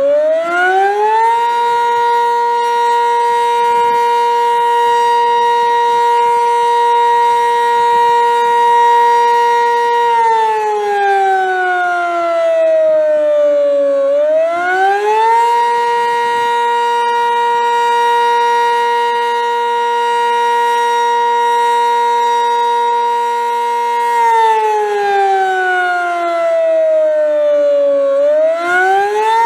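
Sentry 15V2T outdoor warning siren sounding a slow wail, pretty loud: it winds up over about a second and a half, holds its chord for about eight seconds, then winds down over about four seconds. This happens twice, and it starts winding up a third time near the end.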